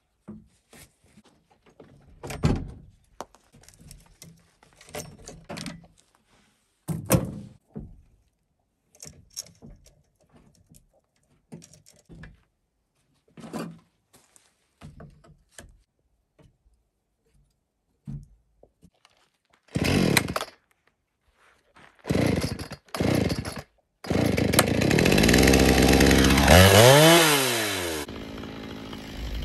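Light clicks and knocks as a chainsaw's bar and chain are handled, then a gas chainsaw is pull-started: three short bursts, after which it catches about five seconds from the end, revs high, and drops back to a steady idle.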